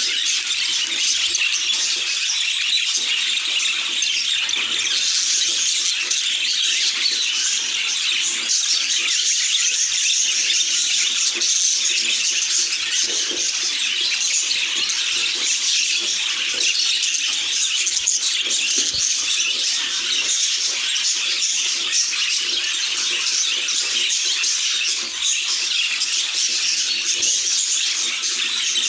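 A group of budgerigars chattering and chirping without a break, many voices overlapping into a steady, dense twitter.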